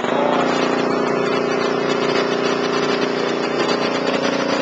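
High-pressure breathing-air compressor running steadily and loudly, just started on its automatic setting to fill its 6,000-rated storage tanks.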